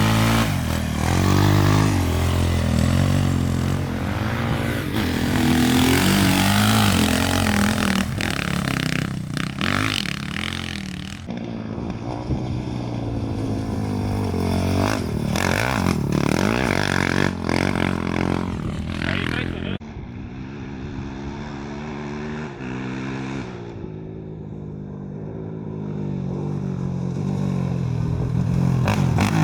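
Off-road race engines revving hard, their pitch rising and falling as the vehicles accelerate and pass. The sound changes abruptly about eleven and twenty seconds in.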